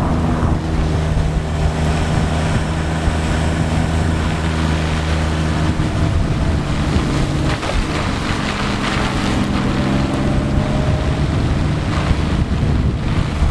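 Toyota Chaser JZX100 driving at a steady low speed, its engine running evenly, with wind buffeting the microphone and tyres hissing on the wet road.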